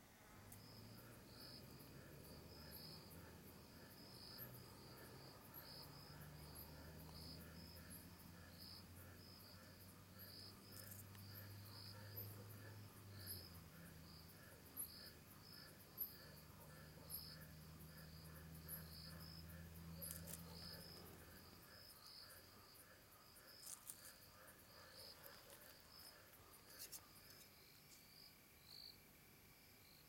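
Crickets chirping faintly in a steady, regular rhythm of about two chirps a second, over a low hum that fades out about two thirds of the way through, with a few soft clicks.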